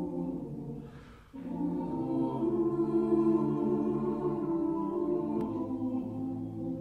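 Mixed chamber choir singing sustained chords without accompaniment. The sound fades into a short break about a second in, then the voices come back in together and swell to a fuller chord.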